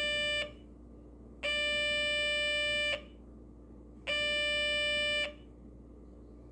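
Light-activated alarm kit's transistor oscillator sounding a steady, buzzy electronic tone in repeated beeps of a second or so with short gaps between, set off by light falling on its solar cell. One beep ends about half a second in, and two more follow.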